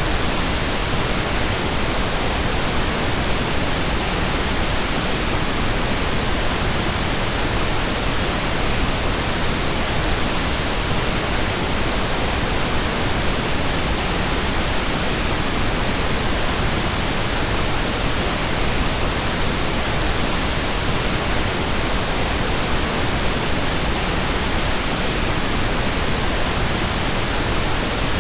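Steady pink noise: an even, unchanging hiss spread across the whole range of pitch.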